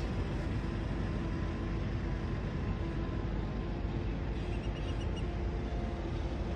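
Steady wind rumble on a phone microphone. A few faint, short high chirps come about two-thirds of the way through.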